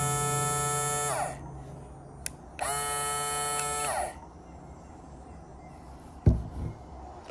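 BlendPro portable blender's small electric motor running with a steady high whine, winding down about a second in. A click, then the motor runs again for about a second and a half and winds down; a sharp thump near the end.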